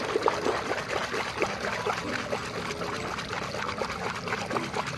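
Water running and splashing steadily as a muddy plastic toy loader is washed under it.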